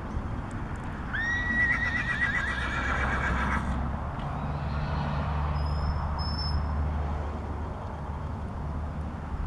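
A horse whinnies about a second in: one call lasting some two and a half seconds that rises sharply at its start and then quavers. A low steady hum sets in under it and carries on.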